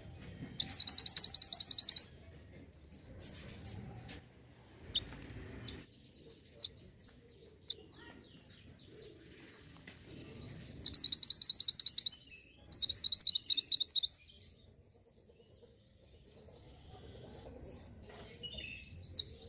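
Recorded bird song played as a lure for the mantenan gunung: three loud, rapid, high trilled phrases, each about a second and a half long, with softer scattered chips and notes between them.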